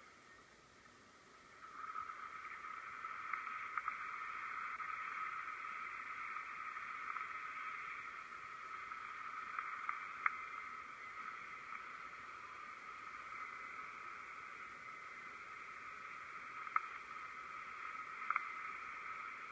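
Steady rushing noise of the wakeboard being towed across the water behind a jet ski, rising about two seconds in as the rider gets up, with a few faint clicks.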